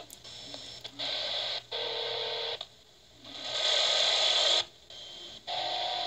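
Small hand-crank AM/FM/weather-band radio's speaker giving out static as its tuning dial is turned between stations, the hiss cutting out and coming back several times. A steady whistle tone sounds twice, briefly about two seconds in and again near the end.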